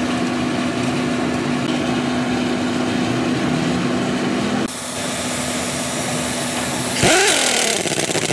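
A steady machine drone with one held tone runs through the first half, then drops away at a cut. Near the end a large pneumatic impact wrench starts up loudly on a wheel nut of a wheel loader's rim, its pitch sweeping up and down as it spins.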